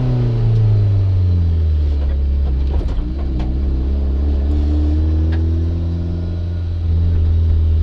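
A 1994 Mazda Miata's turbocharged 1.8-litre four-cylinder engine, revs falling as it comes off the throttle, then running steadily with a slight rise in revs midway. A few clicks about three seconds in.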